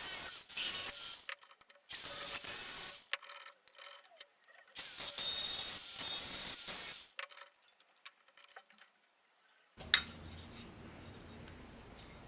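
Rubbing or scraping strokes on a hard surface, like sanding or filing, in three bursts of one to two seconds each, followed by a lull. A sharp click just under ten seconds in, then a faint steady low hum.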